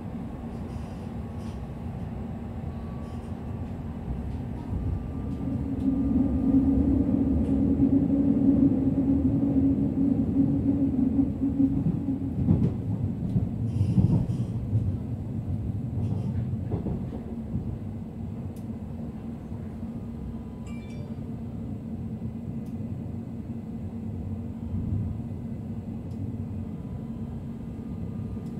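Berlin S-Bahn class 483/484 electric multiple unit running between stations, heard from inside the passenger car: a steady rumble of the wheels and running gear with a humming tone. It grows louder from about five to twelve seconds in, and a few knocks follow in the middle before it settles to a quieter, even run.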